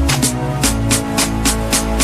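Background music with a steady electronic beat and a bass line.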